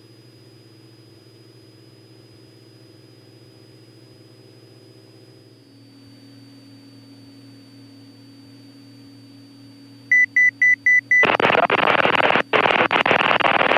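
Cessna 206 Stationair's engine and propeller drone, faint, low and steady as heard through the cockpit audio. About ten seconds in come five quick high beeps, then a loud hiss like radio static, broken by brief dropouts.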